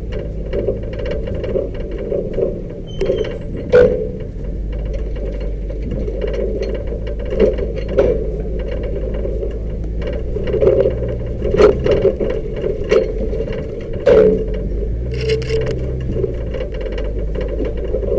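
Pickup truck crawling over a rocky dirt trail: a low, steady engine drone with frequent knocks, clatters and rattles as the vehicle jolts over the rocks.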